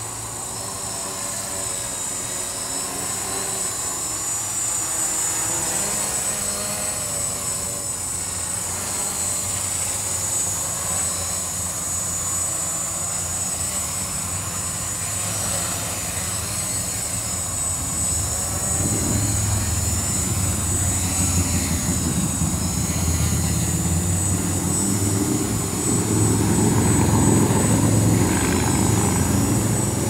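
Witespy quadcopter's electric motors and propellers whining steadily, their pitch wavering as it holds against the wind. It grows louder in the second half as it hovers low and close, with a low rumble of wind buffeting the microphone.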